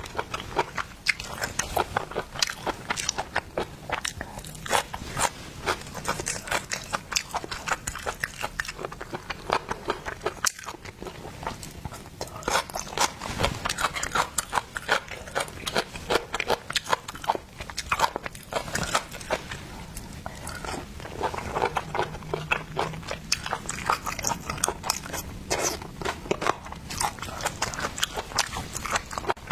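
Close-miked eating of seafood: continuous chewing and crunching, with many sharp clicks and crackles.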